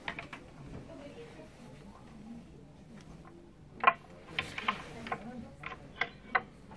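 A quiet background broken by an irregular run of short, sharp clicks and knocks, starting about four seconds in; the first one is the loudest.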